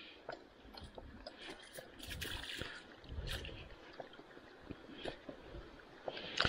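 Light splashing and dripping water with scattered small clicks and knocks, as a rainbow trout is handled in a wet landing net.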